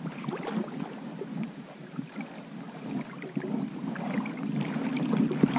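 River water sloshing and splashing, with scattered small knocks; it grows louder near the end.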